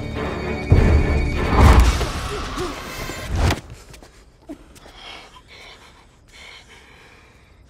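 Film soundtrack: dramatic score with heavy thuds and crashes for about three and a half seconds, cutting off suddenly into a quiet stretch with a few faint clicks.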